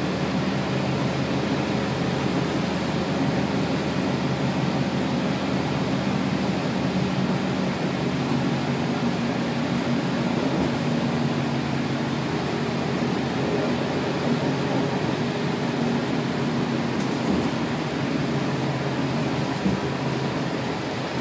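Scania DC9 9.3-litre five-cylinder diesel engine of a Scania K280UB city bus running steadily, heard from inside the passenger cabin as a low, even drone under a steady hiss of road and ventilation noise.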